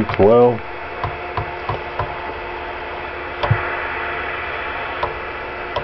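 Galaxy DX 949 CB radio's rotary channel selector clicking through its detents, a handful of sharp clicks unevenly spaced. Under the clicks is a steady hiss of receiver static from the radio's speaker, clean of the switching power supply's birdie whistle now that the supply has been filtered.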